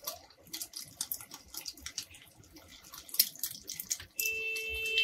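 Egg-coated shami kabab patties shallow-frying in hot oil in a pan, the oil sizzling with quick, irregular crackles and pops. Near the end a steady high tone sounds for about a second.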